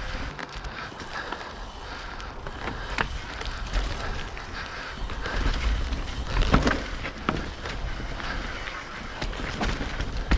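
Wind rushing over the microphone and tyre noise from a mountain bike riding down a dirt trail, with a few sharp knocks and rattles from the bike over bumps, the loudest about six and a half seconds in.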